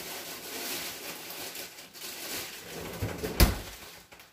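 Rustling and handling noises of someone moving kitchen items about, with one sharp knock about three and a half seconds in.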